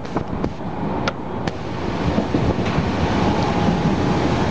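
Mumbai suburban local train running, heard inside the carriage beside an open doorway: a steady rumble and rattle with wind rushing in, and a few sharp clicks in the first second and a half.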